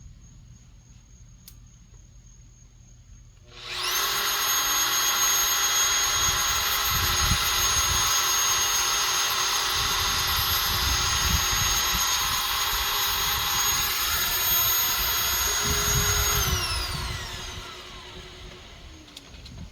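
Electric power tool motor starting about three seconds in, running at a steady high whine for about thirteen seconds with a few heavier low rumbles, then spinning down with a falling pitch.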